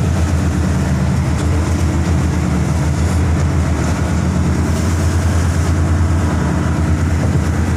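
Steady low drone of a ship's engines and machinery, with an even rushing noise over it.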